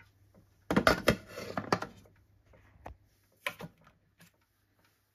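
Plastic lid of a Thermomix being fitted onto its stainless steel mixing bowl: a quick cluster of clicks and knocks about a second in, then a few lighter single clicks.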